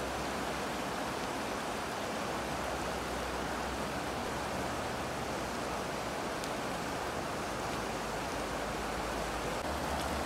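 Fast-flowing mountain river rushing over stones and small rapids, a steady, even rush of water.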